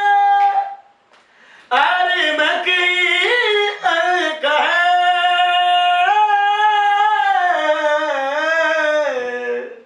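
A solo voice singing unaccompanied, a slow melody of long held notes with ornamented turns and vibrato. It breaks off for a breath about a second in.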